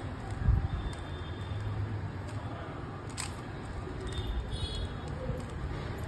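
Plastic 3x3 Rubik's cube being turned by hand: a few scattered clicks as the layers snap round, one louder about three seconds in, over a low steady background rumble.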